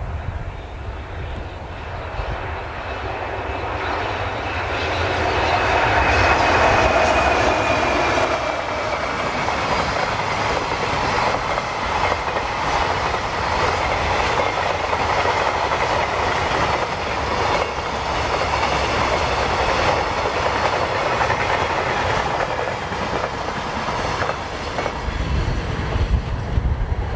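JR Freight EH500 electric locomotive passing at speed, rising to its loudest with a high whine that falls slightly in pitch. It is followed by a long string of container flatcars clattering rhythmically over the rail joints. The clatter ends near the end as the last wagon goes by, leaving wind buffeting the microphone.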